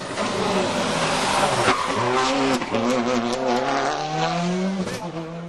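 A World Rally Car's turbocharged four-cylinder engine being driven hard on a rally stage, its pitch falling and rising several times through gear changes.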